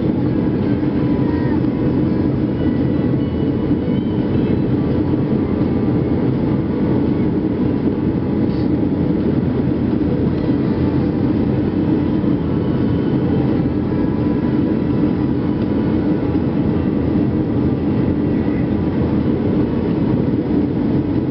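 Steady, low-pitched cabin noise of a jet airliner descending on final approach just before touchdown: engine and airflow noise heard from a window seat over the wing.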